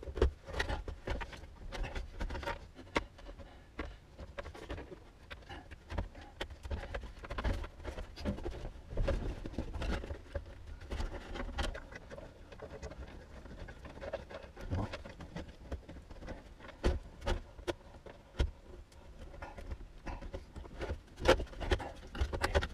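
Irregular clicks, taps and rustling of hands working on wiring and parts at the steering column under a car's dashboard, with a few louder knocks.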